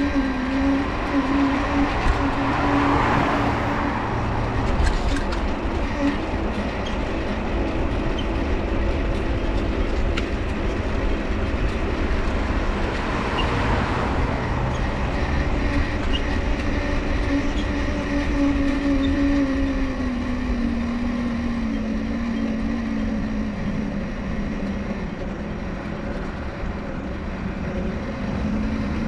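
Dynamo on a Mifa folding bike humming while riding, over tyre and road rumble. Its pitch sinks from about two-thirds of the way in as the bike slows, then rises again near the end.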